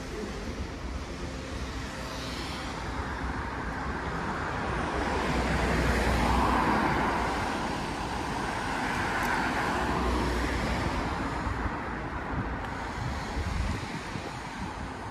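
Road traffic on a city street: cars passing, the noise swelling louder twice in the middle as vehicles go by, then easing back.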